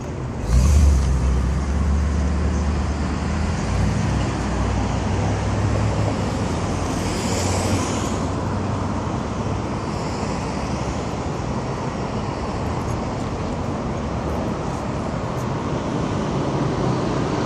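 Mercedes-Benz SL55 AMG's supercharged 5.4-litre V8 pulling away hard from a stop, a loud deep exhaust note starting about half a second in and fading away over the next several seconds. Steady street traffic noise follows.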